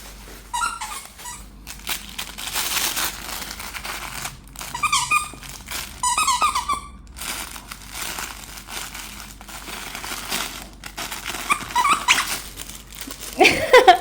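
Crinkling and rustling of a new toy as a Siberian husky plays with it, with a few short high-pitched squeaky sounds.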